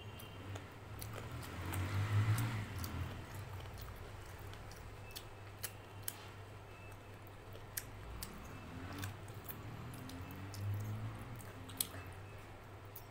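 Close-up wet chewing and biting of chicken curry and rice eaten by hand, loudest about two seconds in and again near the end, with a few sharp clicks between, over a steady low hum.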